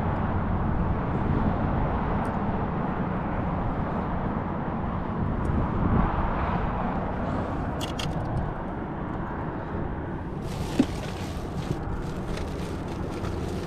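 A steady low rumble throughout, then from about ten seconds in a plastic bag and aluminium foil crinkling as a hand rummages in the bait bag.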